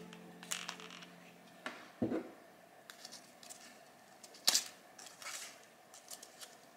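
Paper petals rustling and crinkling as a handmade paper flower is squeezed and shaped between the fingers, with scattered small clicks and a dull knock about two seconds in; a sharp click about four and a half seconds in is the loudest sound.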